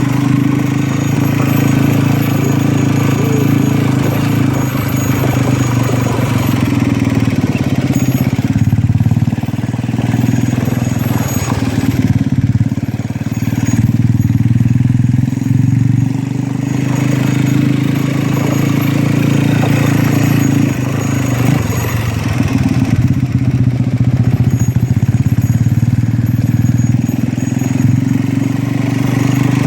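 An engine running steadily with a loud, low hum.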